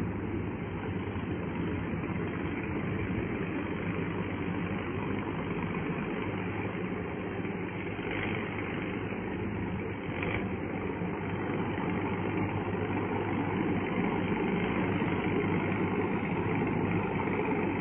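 Crawler-tracked paddy tiller's engine running steadily under load as its rotor churns mud in a flooded rice field, growing a little louder as the machine comes closer.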